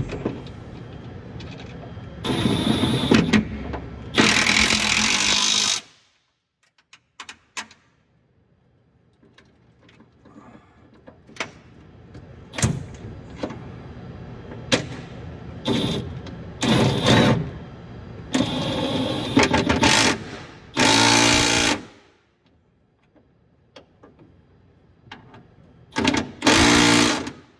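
Snap-on cordless impact running in repeated bursts of hammering, a second or two each, with handling clicks and knocks between, as it drives in the bolts that mount a racing seat.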